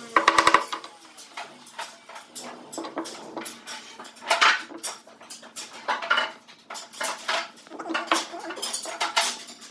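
A quick run of hammer taps on wooden parts, ending about half a second in. Then scattered knocks and clatter as wooden pieces and hand tools are handled on a wooden workbench.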